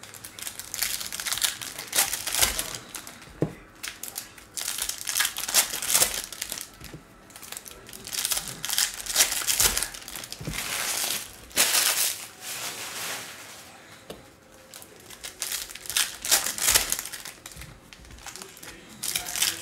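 Foil wrappers of Series 2 hockey card packs crinkling as they are handled and opened close to the microphone. The crinkling comes in irregular loud bursts with short pauses between them.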